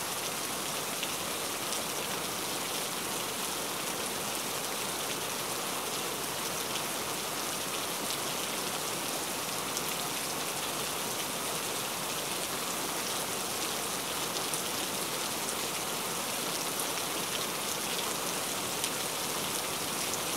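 Steady rain: an even hiss of falling rain with scattered faint drop ticks.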